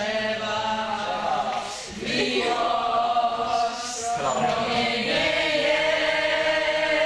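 A group of voices singing long held notes together like a chant, in three phrases with short breaks between them.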